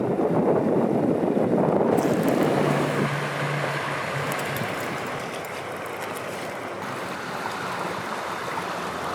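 Steady rush of river water with some wind, from outdoor fishing footage. About two to three seconds in, one clip's water sound crossfades into another's, which is quieter and thinner and stays steady from there.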